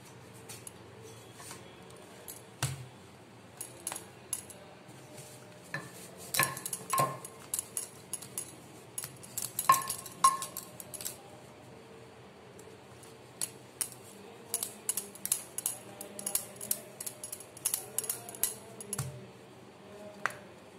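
Clinks and taps of a stainless-steel plate and hands working dough on a stone counter. A few clinks ring briefly, about a third of the way in and near the middle, and a quicker run of small clicks follows in the second half.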